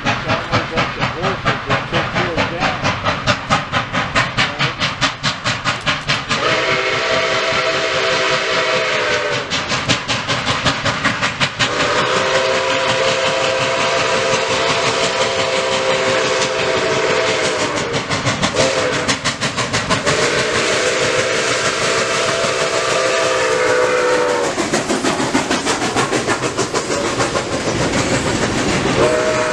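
Nickel Plate Road 765, a Lima-built 2-8-4 Berkshire steam locomotive, working hard toward a grade crossing with quick, even exhaust chuffs. It sounds its steam whistle in the grade-crossing signal: long, long, short, long. Then the locomotive and its passenger cars roll past with a steady clatter of wheels on rail joints.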